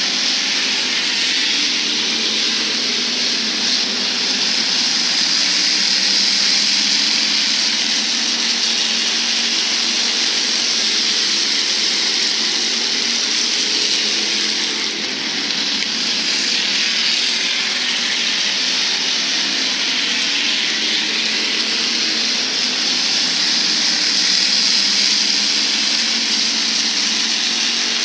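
IMCA Hobby Stock race cars running at racing speed, their engines making a loud, continuous noise that dips briefly about halfway through.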